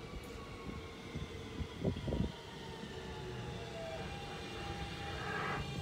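R160B subway train with Siemens propulsion pulling into the station, its motors giving a faint whine that slowly falls in pitch over a low rumble as it brakes, growing louder toward the end, with a brief knock about two seconds in.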